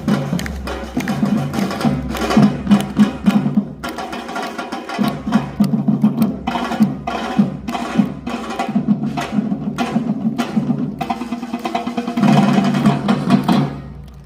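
A percussion ensemble playing a dense, driving rhythm as a warm-up piece. It breaks off right at the end.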